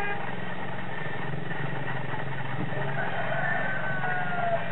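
A rooster crowing once, about three seconds in, over a steady low drone.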